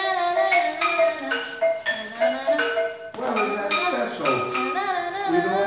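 A girl singing a made-up song while tapping out notes with mallets on a xylophone-type instrument, a series of held notes that turn into wavering sung phrases about halfway through.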